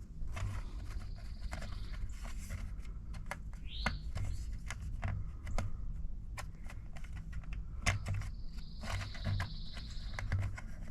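Scattered clicks and light knocks of small parts being handled as an O-ring assortment is searched by hand for a ring to match a hydraulic pump plug, over a steady low hum.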